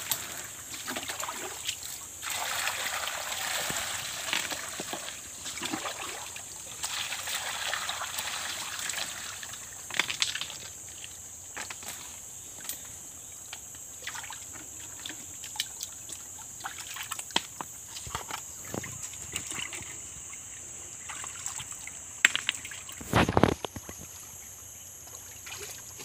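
Muddy water sloshing and trickling over a carpet-lined sluice as gravel is washed by hand, loudest in the first ten seconds, with scattered clicks of stones. A steady high-pitched hiss runs underneath, and there is one loud knock about 23 seconds in.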